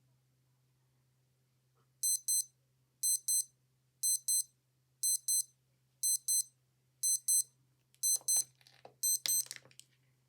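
Digital watch alarm beeping from its small piezo beeper: high-pitched double beeps, one pair a second, starting about two seconds in and running for eight pairs. Rustling handling noise and a click come in over the last two pairs.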